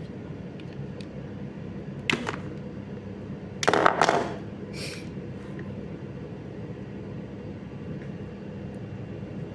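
Steady hum in the room, with a few short rustles from the stripped CAT6 cable being handled. The loudest rustle comes about four seconds in.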